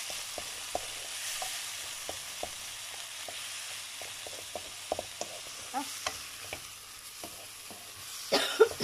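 Salmon cubes frying in oil with chili flakes and onion in a pan, a steady sizzle, with a utensil clicking and tapping against the pan every so often as it is stirred. Near the end comes a short, louder burst of noise.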